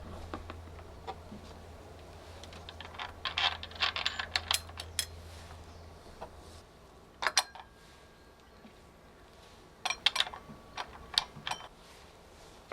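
Clicks and light knocks of brushcutter parts being handled while a cutting blade is fitted, with a quick run of them about a third of the way in and more near the end. A low hum sits underneath for the first half, then stops.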